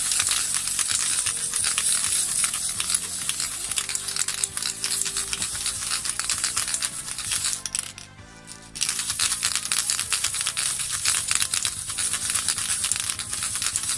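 Nearly empty aerosol spray-paint can held down continuously, hissing and spluttering with rapid crackles as it runs out. The spray stops for under a second a little past halfway, then starts again. Background music plays underneath.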